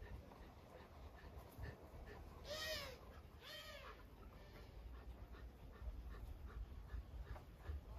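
A dog whimpering faintly twice, two short whines that rise and fall about two and a half and three and a half seconds in, over faint regular ticking.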